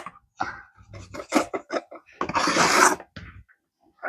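Measuring cup scraping and scooping through flour: a run of short scrapes, then one longer scrape about two seconds in.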